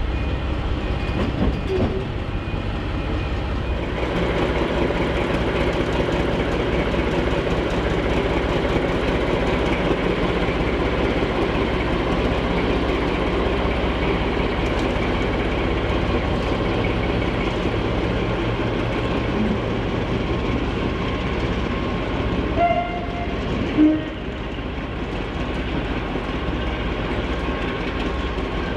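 A train running, heard from a carriage window for the first few seconds. Then diesel locomotive engines idling steadily at the platform, with a brief louder sound about 23 seconds in.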